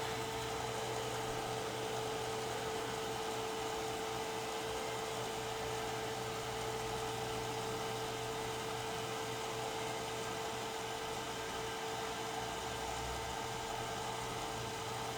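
Steady machine hum: an even hiss with one constant mid-pitched whine and a low drone, unchanging throughout.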